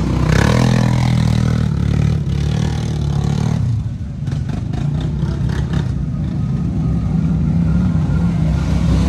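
ATV engines running and revving as the quads plow through deep flood water, with water churning and splashing around them. The engine pitch rises and falls early on, then holds fairly steady.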